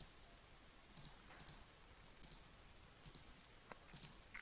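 Faint computer mouse clicks, several spread over a few seconds, some in quick pairs, over near-silent room tone.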